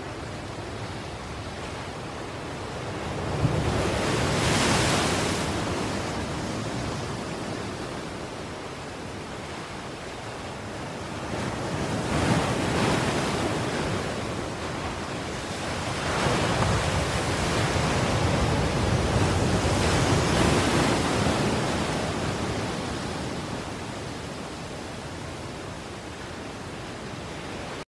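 Ocean surf: an even wash of waves that swells louder and falls back every several seconds.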